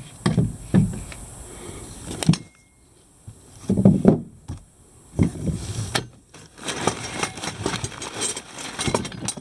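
Cardboard box being handled, with a few dull thumps and knocks, then crumpled brown packing paper rustling and crackling as a hand digs through it in the second half.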